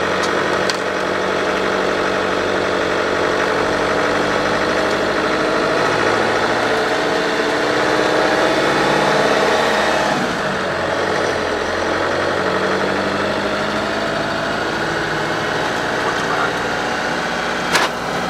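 Camper van's engine and road noise heard from inside the cab while driving, a steady engine drone whose pitch drops and picks up again about ten seconds in.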